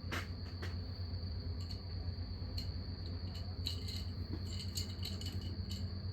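Insects at a campsite giving a steady, unbroken high-pitched trill, with a low hum underneath and a few scattered light clicks and rattles.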